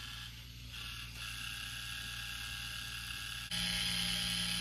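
A K'nex car's small electric motor and plastic gears whirring steadily. About three and a half seconds in, the whir abruptly gets louder.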